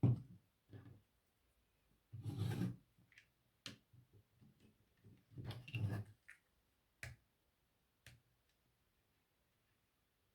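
Plastic Lego pieces being handled and clicked together: a few sharp clicks, with two longer rustling stretches of pieces being moved about, one about two seconds in and one about five seconds in.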